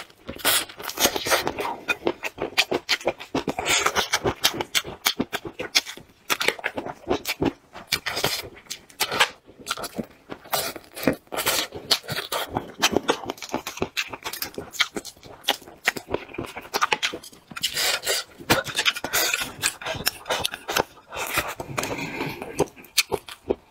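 Close-miked eating of braised chicken feet: biting and chewing, heard as a dense, irregular run of mouth clicks and smacks.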